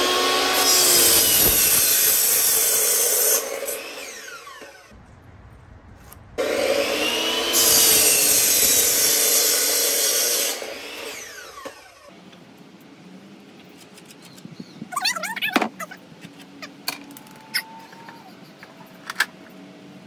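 Hitachi miter saw cutting across wooden boards twice: each time the motor runs loud for about four seconds through the cut, then is released and winds down with falling pitch. The later part holds only a few sharp knocks.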